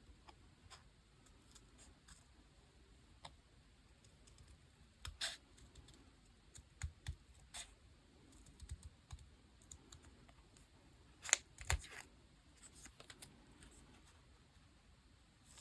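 Paper and stationery handled at a desk for diary decorating: scattered small clicks, taps and brief scrapes, with a louder cluster of clicks about two-thirds of the way in.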